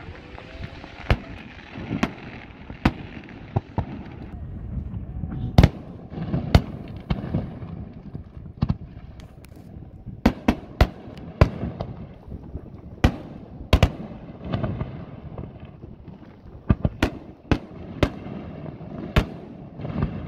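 A long series of irregular sharp bangs and pops, roughly one a second, over a continuous low rumble.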